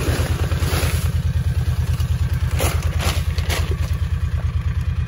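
An engine idling with a steady low throb, over which a plastic feed bag of cattle mineral rustles and crinkles several times as it is handled.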